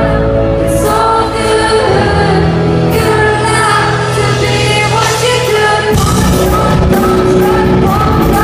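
Live indie rock band with a woman singing over electric guitars, bass and drums, loud and reverberant in a concert hall. About six seconds in, the low end and drums grow heavier as the band plays fuller.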